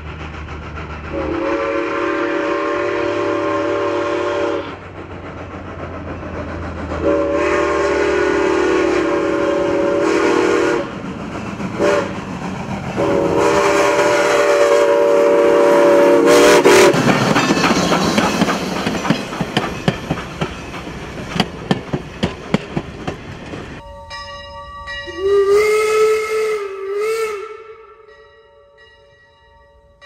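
Norfolk & Western No. 475's Southern Pacific six-chime steam whistle sounds a chord in a long, long, short, long pattern, the grade-crossing signal. The locomotive then passes with a rush of steam exhaust and a quickening run of sharp chuffs. Near the end a fainter wavering whistle tone sounds before the level drops.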